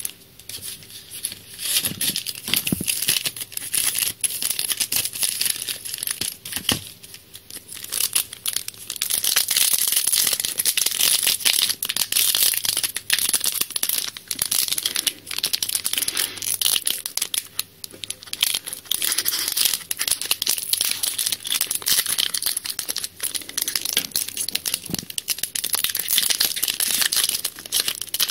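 Foil wrapper of a Yu-Gi-Oh! booster pack crinkling steadily as it is handled and torn open.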